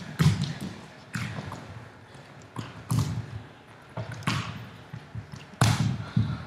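Dancers' bodies and feet thudding on the studio floor as they fall, roll and land: a series of dull thuds about every second or so, the loudest just after the start and near the end.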